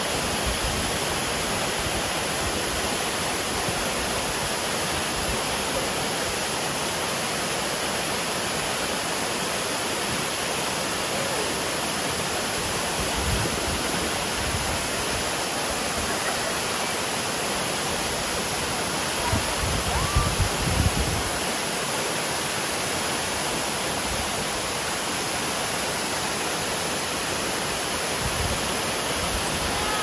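Steady rushing of water from a forest stream or waterfall, an even hiss that holds throughout. A few low bumps come through, the largest about two-thirds of the way in.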